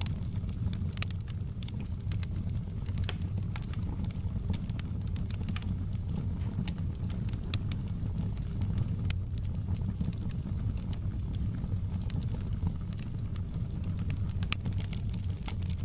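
Wood fire crackling: frequent irregular sharp pops and snaps over a steady low rumble.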